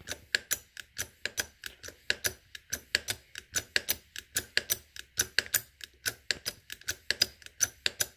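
Freshly rebuilt hydraulic bottle jack being pumped by hand, clicking several times a second with each stroke of the pump as the ram rises: the jack is lifting again.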